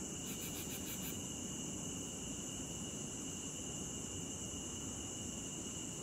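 Steady chorus of crickets, a constant high-pitched trilling, over a low background hiss. A quick run of about six pulsing chirps sounds during the first second.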